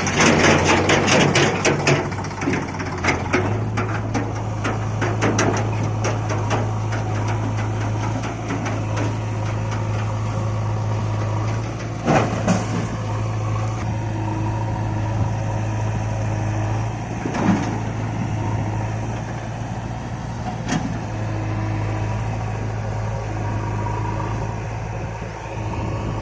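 Heavy diesel machinery engine running steadily at low revs, with a burst of rattling in the first couple of seconds and a few sharp metallic knocks later on.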